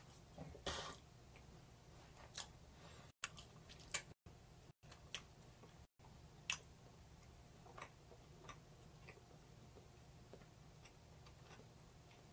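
Near silence over a low hum, broken by sparse soft clicks and smacks from someone quietly eating roast chicken, with one short scuffing noise just under a second in. The audio cuts out completely for brief moments four times between about three and six seconds in.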